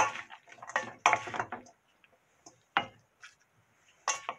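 Wooden spoon scraping and knocking against a stainless steel mixing bowl while scooping creamy corn salad onto a plate: a sharp knock at the start, a few scrapes in the first second and a half, then single knocks near three seconds and near the end.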